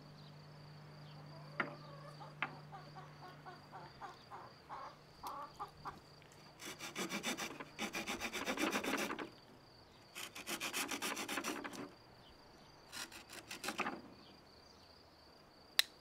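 The small wood-saw blade of a Victorinox Huntsman Swiss Army knife sawing through a hazel branch to cut it to length: three spells of quick back-and-forth strokes, with light clicks of handling before them.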